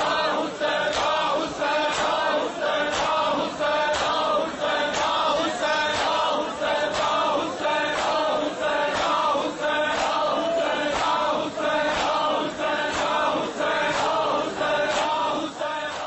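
A group of men chanting a Shia noha in unison, with sharp beats keeping a steady rhythm; it fades out at the very end.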